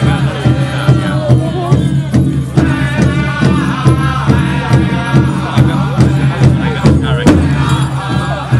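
Music with a steady beat over a held low drone, and a voice singing or chanting over it.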